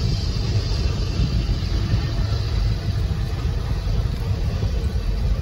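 Empty coal hopper cars of a Union Pacific freight train rolling past on the rails: a steady low rumble, heard from inside a car.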